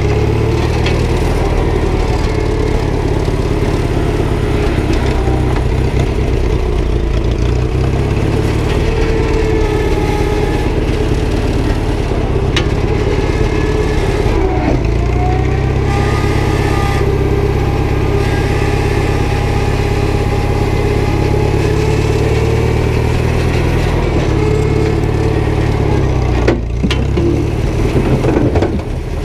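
Old front-loader tractor's engine running steadily, with a higher whine that rises and holds about halfway through. The sound shifts briefly near the end.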